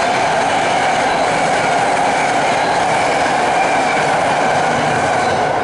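Loud, steady mechanical drone with a humming tone running through it, which drops away suddenly at the end.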